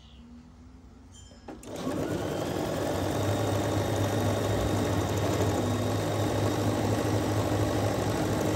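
Computerized sewing machine stitching a seam through patchwork quilt pieces. It starts up about a second and a half in, picks up speed briefly, then runs at a steady speed.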